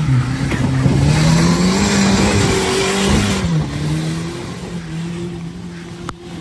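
Ford Ranger pickup's engine revving hard as the truck spins and slides through loose leaves and dirt, with a rushing spray of debris; the revs climb over the first few seconds, then drop and the noise dies down about halfway through.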